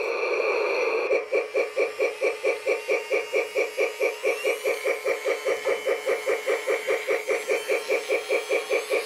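Battery-powered Lionel toy steam locomotive playing its electronic steam-chuffing sound effect. The chuffing starts about a second in and keeps up a steady beat that slowly quickens as the throttle is turned up.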